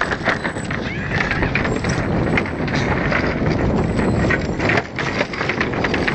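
Bicycle wheels rolling over the loose boards of a wooden plank bridge, the planks knocking and clattering in a rapid, uneven run.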